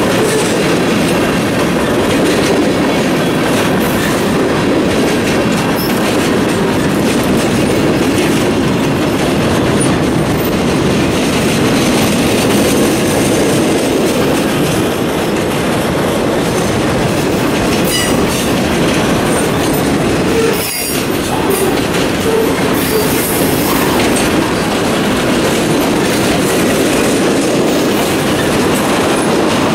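Freight cars of a CSX mixed freight train rolling past close by: a steady, loud rumble of steel wheels on the rails, dipping briefly about two-thirds of the way through.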